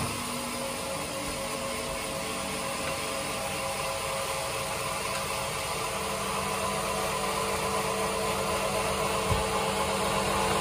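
Band sawmill machinery running with a steady hum and a constant hiss; a faint knock about nine seconds in.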